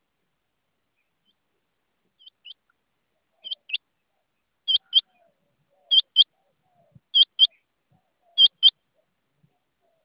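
Rain quail calling: a high double note repeated six times, one pair about every second and a quarter, the first two pairs faint and the rest loud.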